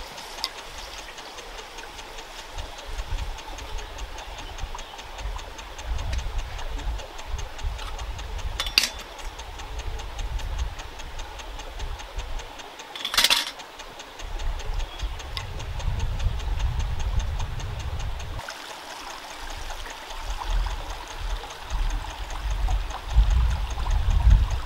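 Wind buffeting the microphone in uneven gusts of low rumble over a faint steady hiss, with two short sharp knocks about nine and thirteen seconds in.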